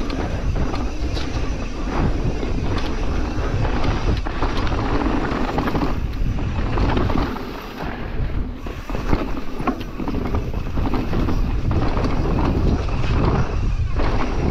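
Mountain bike descending a dirt trail: wind rushing over the camera microphone, tyres rolling on dirt and the bike rattling with many small knocks. It goes quieter for a moment about halfway, then a sharp knock.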